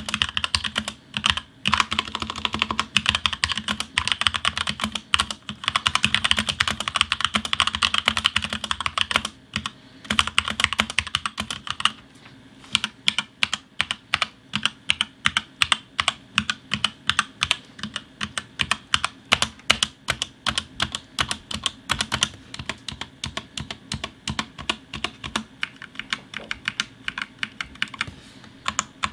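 Typing on a HyperX Alloy Origins mechanical keyboard with smooth, linear, non-clicky HyperX Red switches. A fast, dense run of keystrokes fills about the first twelve seconds, then slower, evenly spaced key presses follow, about three a second.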